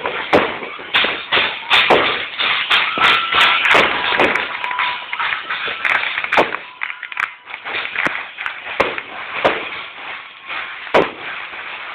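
Fireworks and firecrackers going off in a rapid string of sharp bangs and crackles, thickest in the first half and thinning to separate bangs every second or so after about six seconds in.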